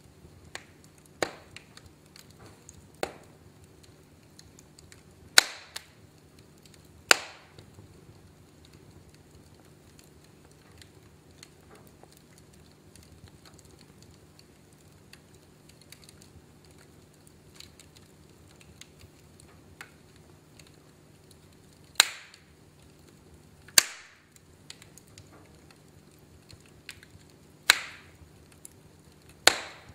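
Wood fire in a fireplace crackling: sharp, irregular pops over a faint steady background, a few much louder than the rest, with a long stretch in the middle of only faint ticks.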